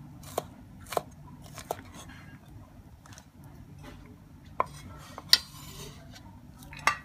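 Steel cleaver chopping long beans on a wooden chopping board: three sharp knocks in the first two seconds. Later the blade knocks and scrapes on the board a few times as the chopped beans are scooped onto it, the loudest knock followed by a brief scrape.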